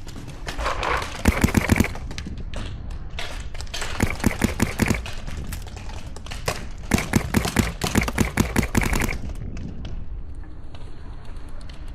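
Paintball marker firing three rapid strings of shots, the last and longest ending about nine seconds in. Wind buffets the microphone throughout.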